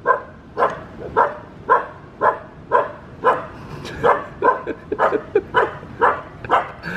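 Siberian husky puppy barking over and over, about two short barks a second, a little quicker in the second half: wary alarm barking at a plastic bag it doesn't trust.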